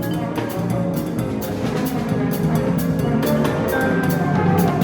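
A live jazz ensemble playing, with the drum kit's cymbals keeping a steady beat.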